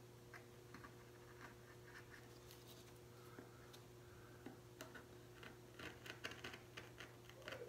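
Small hand carving tool cutting into a wooden woodcut block: faint scratchy ticks, coming more often in the second half, over a steady low hum.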